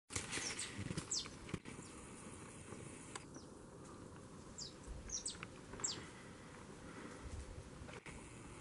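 Faint bird chirps: a scattered handful of short, high notes, each sliding downward, with a few coming close together about five seconds in.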